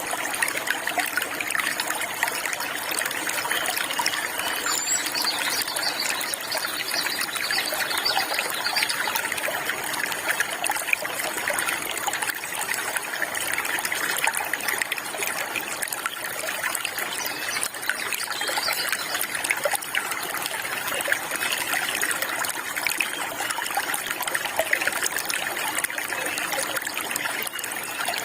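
Water trickling and splashing steadily in a small stream, an even, unbroken flow.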